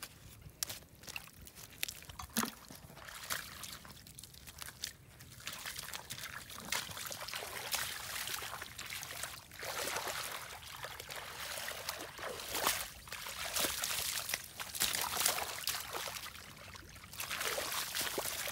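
Hands sloshing and splashing through shallow muddy water, churning the mud in irregular strokes. Sparse wet clicks at first, then a busier run of sloshing from about six seconds in.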